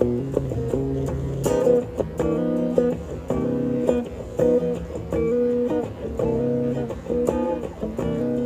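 Background music: a run of short pitched notes over a steady lower part, plucked-string in character.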